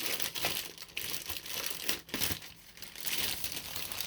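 Wrapping being crinkled and torn off a hardback book by hand, in several uneven surges of crackling.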